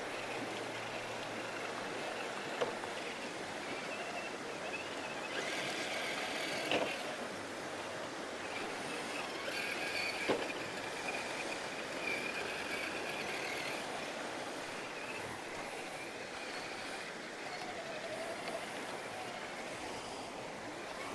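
Axial Trail Honcho RC rock crawler's electric motor and geared drivetrain whining as it crawls over creek rocks, the whine rising and falling with the throttle. Three sharp knocks as it strikes the stones.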